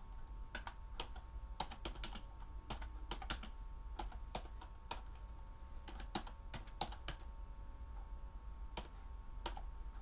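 Typing on a computer keyboard: irregular runs of light key clicks, thinning out near the end, over a steady low hum.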